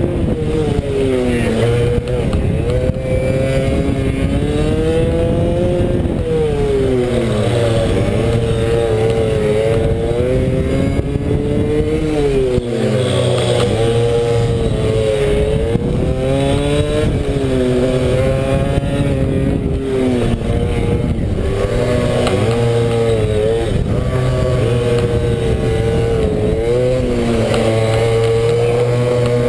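Pit bike's single-cylinder four-stroke engine at racing throttle, revving up and down in waves every couple of seconds as it accelerates out of corners and backs off into the next.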